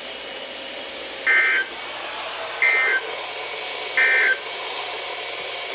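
Three short bursts of Emergency Alert System SAME data tones over NOAA Weather Radio, about a second and a third apart over a faint steady hiss: the end-of-message signal that closes the severe thunderstorm warning.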